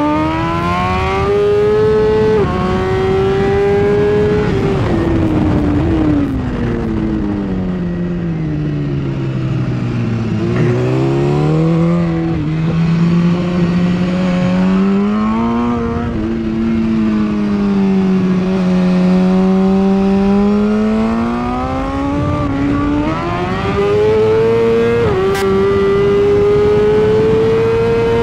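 Onboard sound of a 2016 BMW S1000RR's inline-four engine at racing speed: the revs climb and step down with a gear change about two seconds in, fall away for several seconds to their lowest point about ten seconds in, hold steady, then climb again with quick upshifts in the last few seconds, over steady wind rush.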